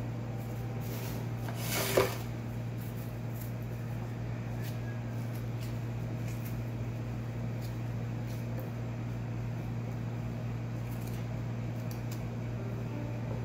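Kitchen knife cutting a tomato on a bamboo cutting board: one sharp knock about two seconds in and a few faint clicks, over a steady low hum.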